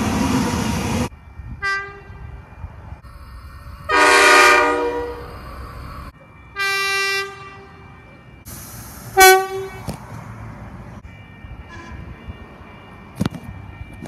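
Electric passenger train running past, its noise cut off about a second in, followed by a series of train horn sounds: a short toot, a loud blast of about a second, a held toot, and a brief sharp toot. A single click comes near the end.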